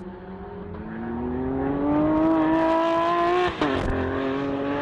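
Lamborghini Aventador SVJ's V12 engine accelerating hard, its note climbing steadily and growing louder. About three and a half seconds in the note breaks briefly for an upshift, then carries on at lower revs.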